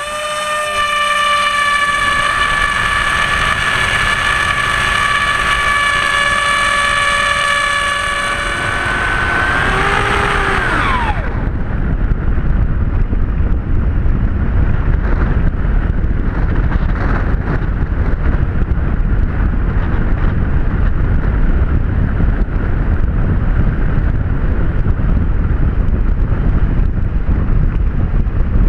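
Electric motor and propeller of a Blitz RC Skysurfer model glider: a steady high whine after spinning up, which drops in pitch and stops about eleven seconds in as the throttle is cut. After that comes a steady rush of wind noise as the model glides.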